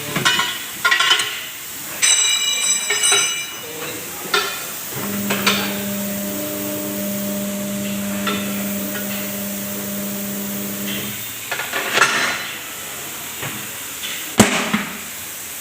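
Metal tools clinking against a wheel rim, with one ringing metallic strike, then an electric motor humming steadily for about six seconds, then two sharp knocks near the end: tyre-changing work on a tubeless tyre.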